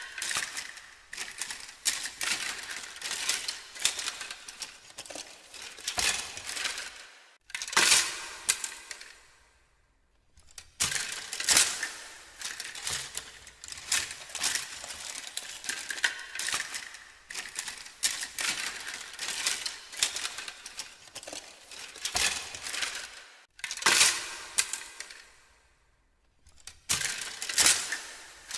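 Rummaging through a pile of small hard objects: busy clattering, clinking and rustling in uneven bursts, stopping briefly twice.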